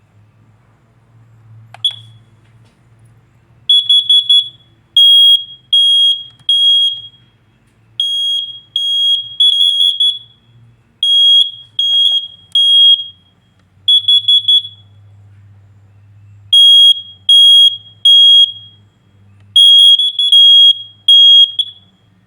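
A household smoke alarm and a carbon monoxide alarm sounding together, uncovered: loud, shrill, single-pitched beeps. They come mostly in groups of three, the smoke alarm's three-beep pattern, with the carbon monoxide alarm's four-beep pattern overlapping it at times.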